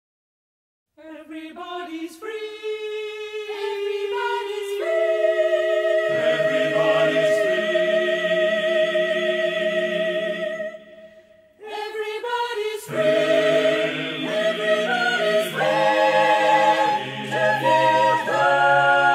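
Soundtrack music: wordless choral singing, voices entering one after another about a second in and building into held chords, breaking off briefly a little past the middle, then coming back fuller.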